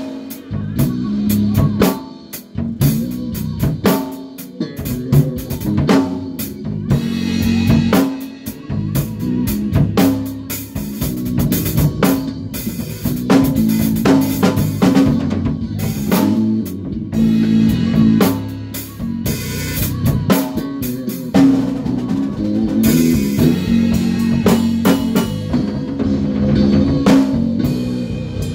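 Band rehearsing live: a drum kit with kick, snare and rimshots plays a steady groove over a bass guitar line.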